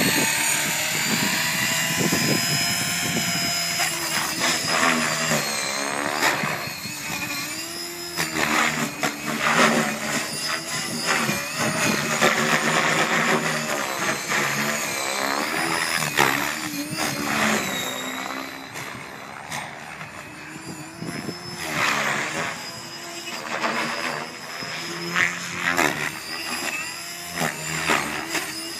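Gaui X5 electric RC helicopter flying: the whine of its Scorpion motor and the noise of its spinning blades swell and fade, and the pitch sweeps up and down as it manoeuvres.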